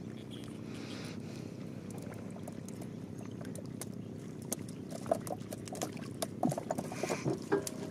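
Small river fishing boat: a steady low rumble, then, about halfway through, a run of short knocks and splashes against the hull, loudest near the end.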